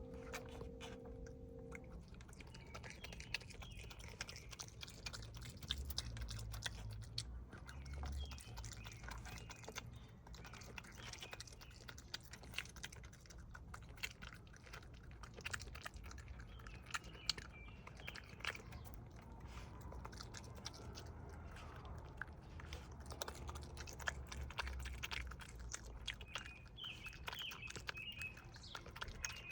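A raccoon chewing and crunching food, a fast irregular run of small clicks and crunches, with faint bird chirps that grow a little near the end.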